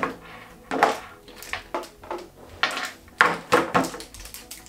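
Hard travel humidor case being opened and its contents handled: a series of sharp clicks and knocks, several in a few seconds, as the case is opened and items are taken out.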